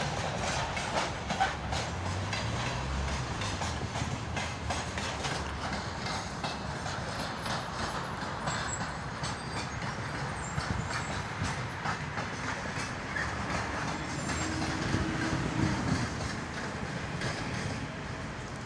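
An electric train running through on the rails, its wheels clicking steadily over the rail joints, with a brief low hum a couple of seconds in.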